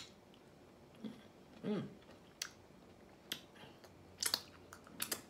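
Close-up mouth sounds of someone eating juicy raw vegetables: faint chewing with sharp wet smacks and clicks of the lips and tongue, and a short hummed "mm" about 1.7 seconds in.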